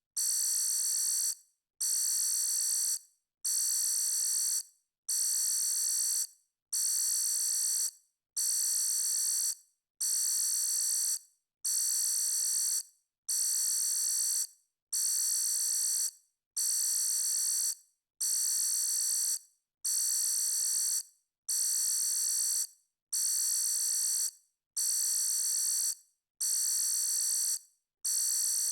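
Electronic alarm beeping: a shrill, high-pitched tone with several overtones. Each beep lasts about a second and a quarter, with a short gap before the next, about one beep every second and a half, repeating evenly.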